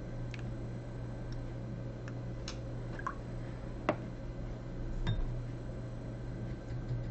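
Painting tools handled on a tabletop: a few separate light clicks and clinks, the sharpest about four seconds in, over a steady low hum.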